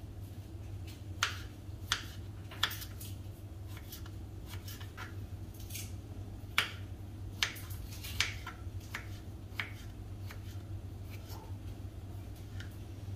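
Chef's knife slicing ginger on a plastic cutting board: irregular sharp taps as the blade strikes the board, a dozen or so spread unevenly, over a steady low hum.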